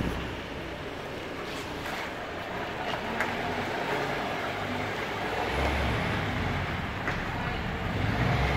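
Diesel engine of a truck-mounted aerial work platform running at low speed as the truck manoeuvres, a steady low rumble that swells about halfway through and again near the end.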